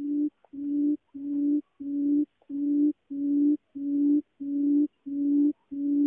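Female barred buttonquail's low hooting call: one note repeated evenly about one and a half times a second, each swelling in loudness and then cutting off.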